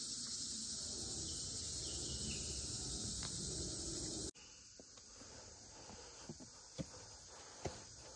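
Steady high-pitched insect chorus of a tropical forest. After a cut about four seconds in, it continues fainter, with a few short knocks near the end.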